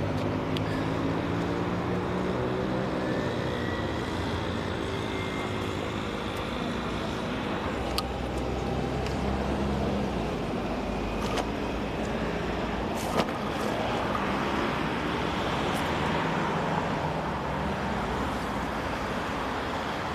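Road traffic on a city street: cars running past in a steady wash of engine and tyre noise, with one engine rising and falling in pitch during the first few seconds and a few sharp clicks later on.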